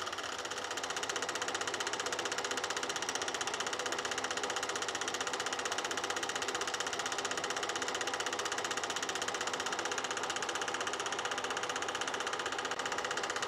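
Sankyo Dualux 1000 8 mm film projector running, with a steady, fast, even mechanical clatter of the film transport over the hum of its motor.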